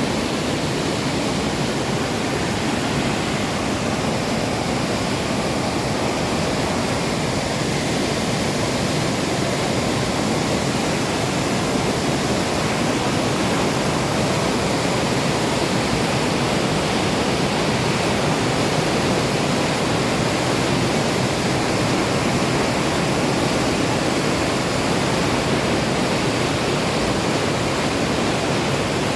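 Mountain stream rushing over rocks: a loud, steady roar of water.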